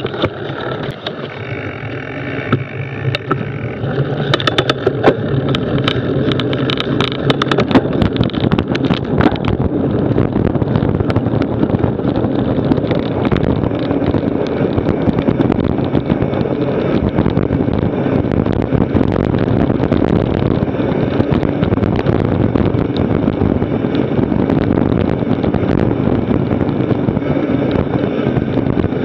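Wind rushing over the microphone and mountain bike tyres rumbling on a dirt trail as the bike picks up speed downhill, getting louder about four seconds in. Rattling clicks and knocks from bumps in the trail come through for several seconds, then the rush settles into a steady roar at speed.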